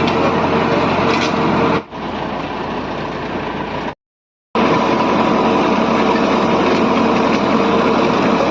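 Heavy road-repair machinery engine running steadily at a constant speed. It cuts abruptly twice: it drops to a quieter take about two seconds in, goes silent for half a second near the middle, then resumes at full level.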